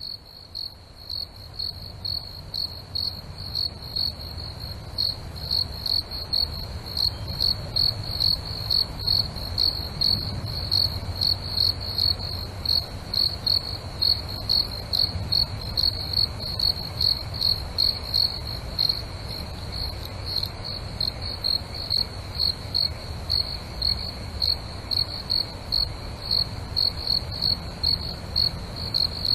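Cricket chirping steadily: a short, high chirp repeated evenly about twice a second, over a faint low hum.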